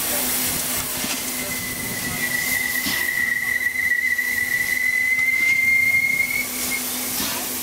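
Steam locomotive standing with steam hissing steadily under a low steady hum. About a second in, one long high whistle tone starts and holds for about five seconds, lifting slightly in pitch just before it stops.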